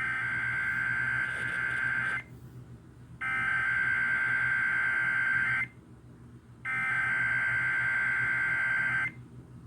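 Emergency Alert System SAME header: three bursts of shrill digital data tones, each about two and a half seconds long with about a second's gap between them, opening a Required Weekly Test.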